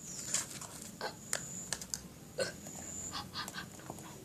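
Foam slime being squeezed and kneaded by hand, with irregular small clicks and sticky pops.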